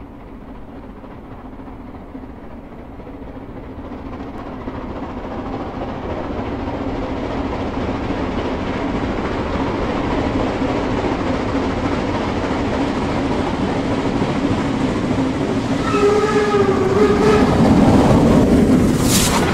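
A steam locomotive approaches and grows steadily louder as it nears. Its whistle blows briefly near the end, and a sharp burst of steam hiss comes just before it passes.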